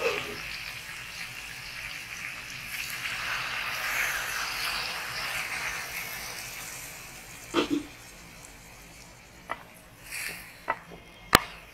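Water poured from a steel vessel into a pressure cooker packed with goat trotters and spices: a steady splashing pour that fades after about seven seconds. Then a thud and a few scattered knocks as the meat is stirred with a wooden spoon, with one sharp click near the end.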